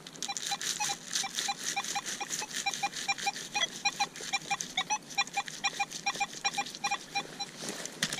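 Metal detector giving a rapid series of short, same-pitched electronic beeps, about four a second, as the coil is swept over the ground. Crackling clicks run underneath, and the beeping stops near the end.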